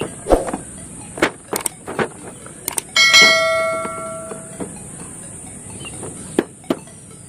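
Cardboard toy box being handled, giving a string of short knocks and taps. About three seconds in comes the loudest sound, a bright bell-like ring that dies away over about a second and a half. A steady high hiss runs underneath.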